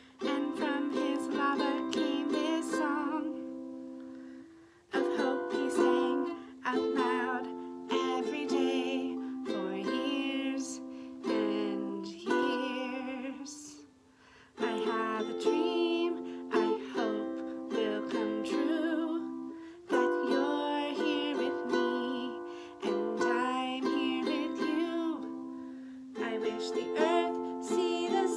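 Ukulele strummed in chords while a woman sings a slow, gentle melody, phrase by phrase, with short pauses between phrases where the chords ring out and fade.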